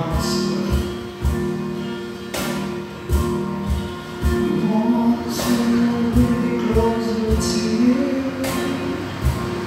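Live worship band playing a slow song: a woman singing long held notes over guitar and a drum kit, with a steady kick drum and a cymbal crash about every three seconds.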